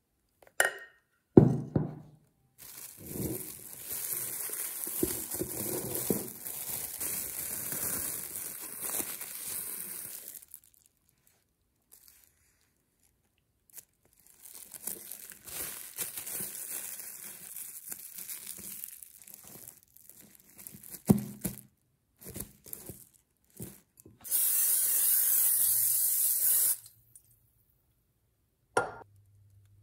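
Rustling, hissing handling noise in long stretches, broken by a few sharp knocks; near the end, a loud, even hiss lasting about two and a half seconds.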